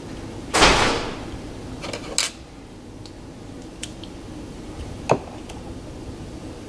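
Small clicks of plastic and metal trigger-shifter parts being handled and fitted together, a few scattered ticks with one sharper click about five seconds in. Under a second in there is a brief loud noisy rush that fades within about half a second.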